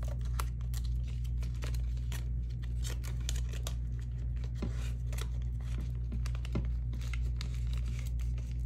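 Paper bills and a paper cash envelope being handled: quick, irregular rustles and crinkles as cash is slid into the envelope, over a steady low hum.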